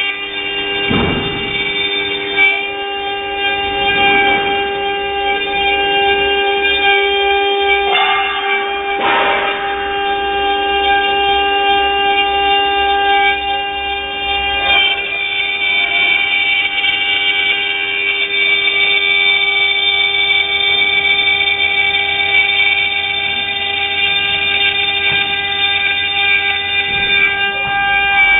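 6090 CNC woodworking router running: a steady, multi-tone mechanical whine with a few brief surges.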